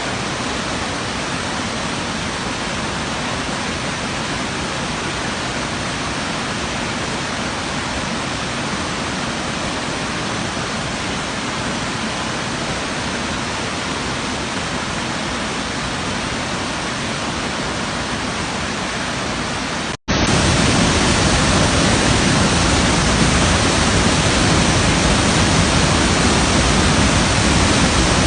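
Steady rushing of a waterfall. About twenty seconds in it cuts out for an instant and comes back louder and deeper.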